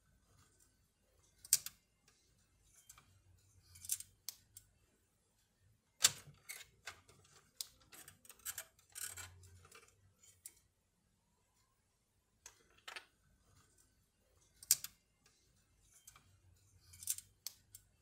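Small hard plastic parts being handled and fitted inside an answering machine's opened plastic housing: irregular clicks, taps and knocks of plastic on plastic, some sharper than others, with short pauses between.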